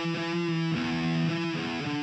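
Intro music: distorted electric guitar playing sustained chords, the chord changing every second or so.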